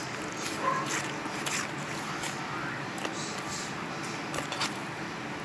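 Blue butter slime kneaded and squashed by hands, with irregular soft sticky clicks and crackles as it is pressed and pulled.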